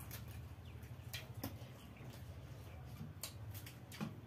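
Quiet table-eating sounds: a few scattered light clicks and crackles from hands and a spoon working food on plates, with chewing, over a steady low hum.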